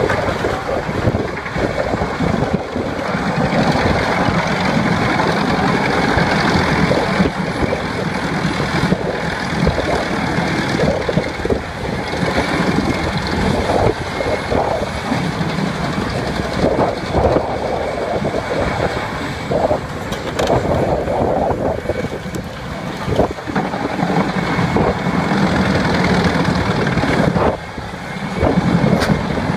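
Heavy wood chipper running under load: an engine hum under a dense crunching noise, broken by sharp cracks as wood is shredded, with a brief lull near the end.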